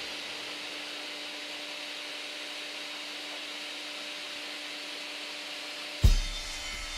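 A workshop power tool running steadily, a hiss with a faint low hum, then a sharp thump about six seconds in.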